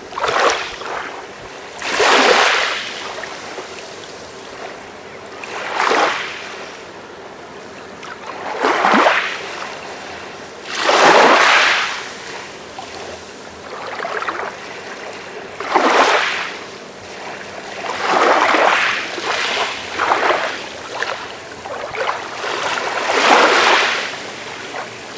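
Calm sea waves washing in, each one a swell of hiss that rises and falls away, coming about every two to five seconds.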